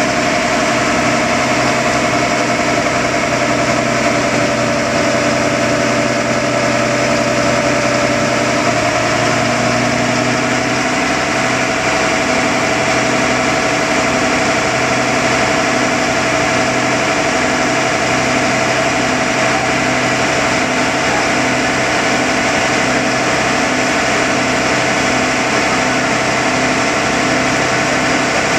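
Pickup truck engine idling steadily on a chassis dyno, its pitch shifting slightly about nine seconds in.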